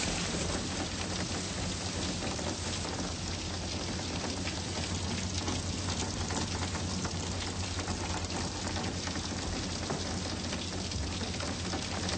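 Steady rain: a dense, even hiss of falling rain with the fine ticks of individual drops, over a steady low hum.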